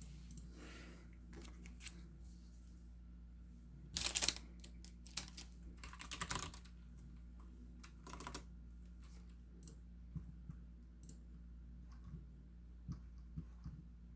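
Sparse typing and clicking on a computer keyboard and mouse, with the loudest flurry of keystrokes about four seconds in, over a low steady hum.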